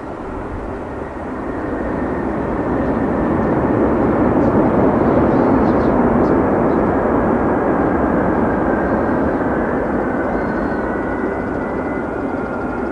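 Airbus A340-600 jet airliner on its landing rollout, its four Rolls-Royce Trent 500 engines rising to a loud roar that peaks a few seconds in and then slowly eases, typical of reverse thrust braking the aircraft. A thin falling whine comes in near the end as the engines spool down.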